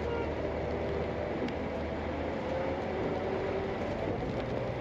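Steady engine and road noise heard from inside a moving bus. The low engine note shifts a little about halfway through.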